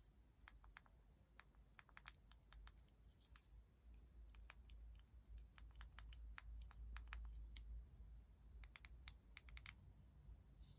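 Faint, irregular small clicks and taps from the Yealink UH36 headset's plastic inline control unit and its USB cable being handled and turned over in the fingers. The clicks come in loose clusters.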